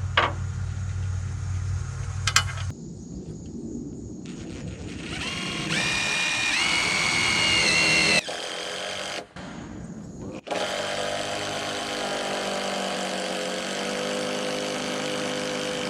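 Power drill driving long screws into a solid white oak header: the motor whines up in rising steps for about three seconds and stops, then runs steadily under load for about six seconds more.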